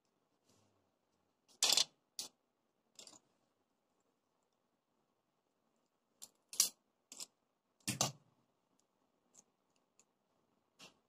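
Sharp clicks and taps of pens and a wooden ruler being handled on a desk, coming irregularly, about nine in all, the loudest near two seconds in and near eight seconds in.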